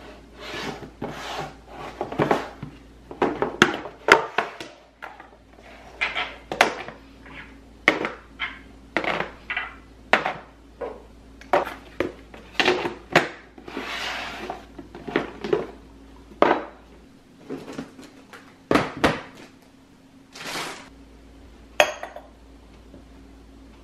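IKEA SAMLA clear plastic storage box and lid being handled while small glass jars are set down inside it: a long run of separate knocks, clicks and clinks of glass and hard plastic, mostly less than a second apart.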